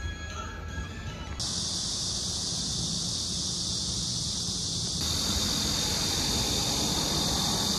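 Steady, high-pitched shrill drone of cicadas in summer trees over a low street rumble. It cuts in sharply about a second and a half in.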